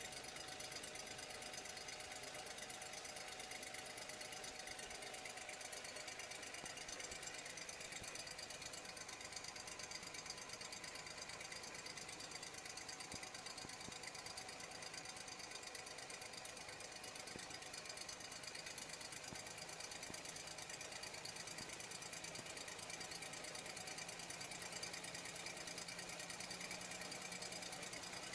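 Generator engine running steadily at constant speed, an even mechanical drone with a fast, regular chatter.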